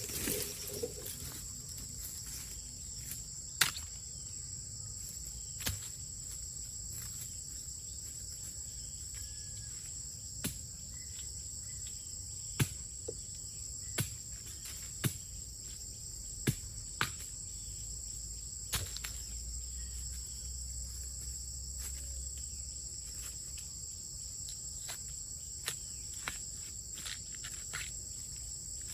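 Steady high-pitched insect chorus, with about a dozen sharp clicks or snaps scattered through it, the loudest a few seconds in.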